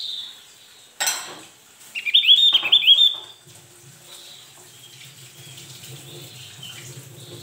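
Javan grey-throated white-eye (opior jawa) giving a loud burst of rapid, high chattering notes about two seconds in, lasting about a second and a half. It comes after a sudden sharp sound about a second in.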